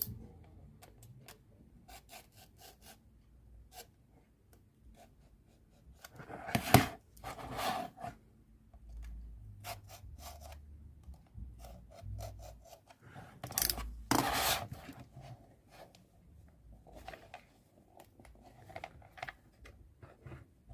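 Packaging of a precision bit set being opened and handled: rubbing, scraping and scattered clicks, with two louder scraping spells partway through and again a little past the middle.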